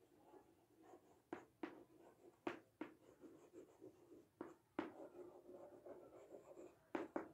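Chalk writing on a chalkboard, faint: a series of sharp taps as the chalk strikes the board, with light scratching between the strokes.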